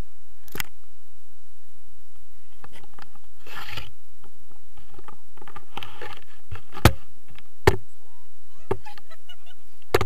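Handling noise from a hand-held action camera being moved about: rubbing and rustling, with a few sharp knocks on the housing, the loudest two in the second half.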